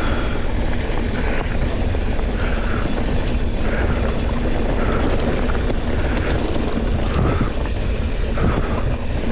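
Continuous rumbling noise from a mountain bike descending a loose, rocky dirt track at speed: tyres rolling over gravel and stones, mixed with wind buffeting the handlebar-mounted camera's microphone.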